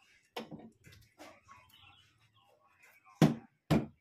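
Wooden knocks and light clatter as a loose wooden fence strip is shifted and set down on the wooden top of a homemade table saw, ending in two sharp, loud knocks about half a second apart.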